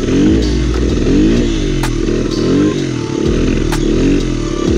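Single-cylinder four-stroke engine of a Honda XR100-based dirt bike revving up and down several times, its pitch rising and falling with the throttle, with a few clicks and rattles mixed in.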